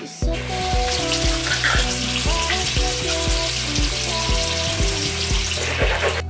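Food sizzling in a frying pan: a dense, steady hiss that cuts in just after the start and stops abruptly near the end, over background music with a steady beat.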